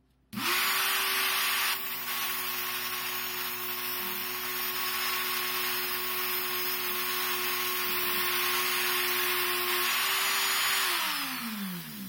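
Cordless rotary tool with a Dremel cutoff wheel starts about half a second in and runs at a steady whine with a grinding hiss as a metal handcuff key's bit is held against the wheel to trim it down. Near the end the motor stops and its pitch falls as it spins down.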